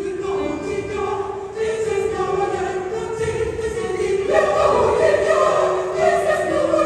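Mixed choir singing, coming in all together at once after a pause and growing fuller and louder about one and a half and four seconds in.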